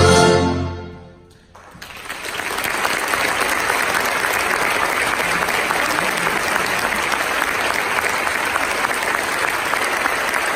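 A full orchestra's final held chord dies away in the first second, and after a brief gap the audience breaks into applause that carries on at a steady level.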